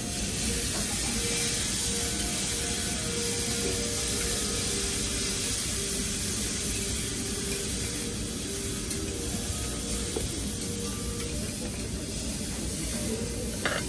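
Food sizzling on a teppanyaki griddle: a steady hiss.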